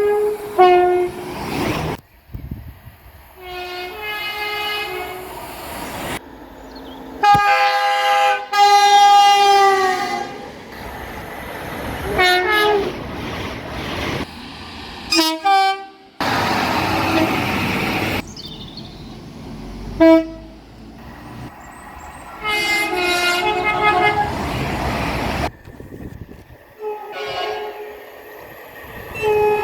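Train horns sounding in a series of short, abruptly cut clips. Some are brief toots and some are longer held blasts, with the rumble of passing trains between them.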